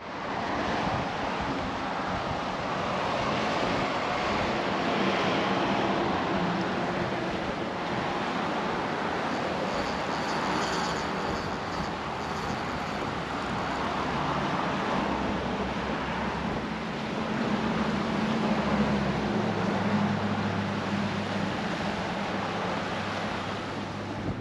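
Outdoor ambience on a highway bridge: steady wind noise and road traffic from cars crossing the bridge, with a low vehicle hum growing in the second half.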